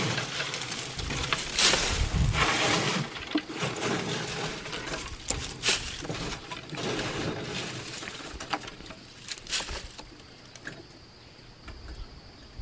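Dry, threshed bean pods and straw rustling and crackling as they are scooped by hand out of a wooden thresher box and dropped into a wheelbarrow, clearing out the threshed batch. The handling is busiest in the first few seconds, with sharp crackles now and then, and thins out near the end.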